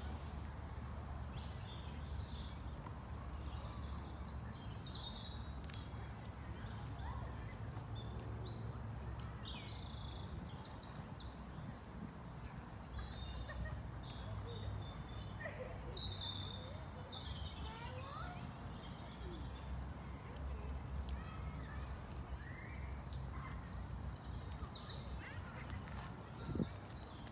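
Small songbirds singing and chirping: rapid runs of high, quick notes in phrases that repeat throughout, over a steady low rumble.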